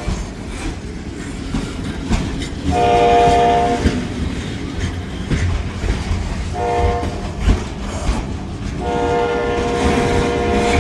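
Diesel locomotive horn sounding for a grade crossing: a blast of about a second, a short blast, then a long blast, over the steady low rumble of the passing train.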